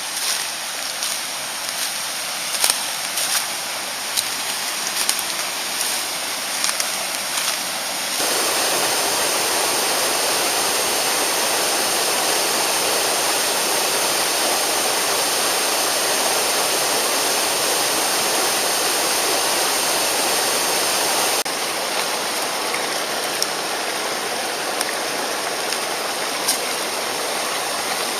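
Mountain stream rushing over rocks, a steady wash of water. A few small clicks and knocks sit on top of it in the first several seconds; the rush gets abruptly louder about eight seconds in and drops back just as suddenly about two-thirds of the way through.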